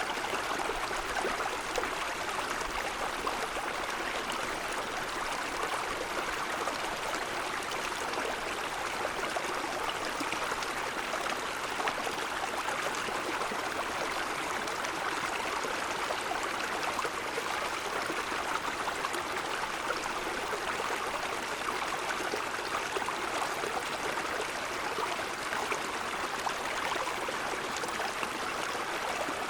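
Mountain stream flowing over snow-covered stones: a steady, even rush of water with no breaks.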